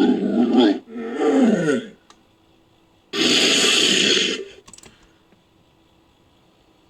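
Creature sound effect mixed from animal recordings: two growling calls in quick succession, the second sliding down in pitch, then about three seconds in a harsh, hissing roar lasting over a second.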